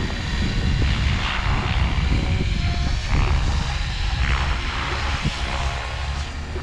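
Align T-Rex 500X electric RC helicopter in flight, its rotor and motor whine swelling and fading as it turns, over a heavy low rumble of wind on the microphone.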